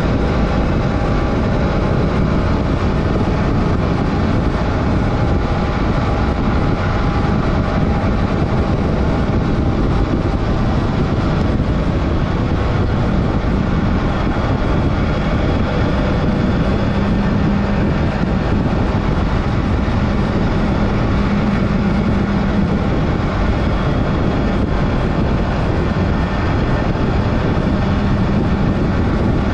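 Adventure motorcycle riding on a dirt road: the engine running steadily under way, its tone wavering a little, under a constant rushing noise.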